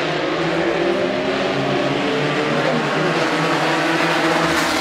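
Toyota sedan-class race cars running together in a pack, several engine notes overlapping at once.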